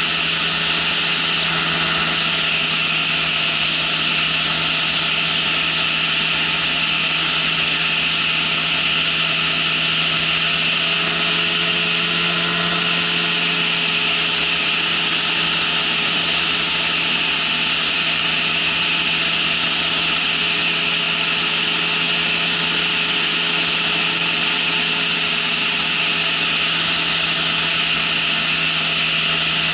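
Ultralight trike in flight: its engine running at a steady cruise under a constant hiss of rushing air, a loud, unbroken drone.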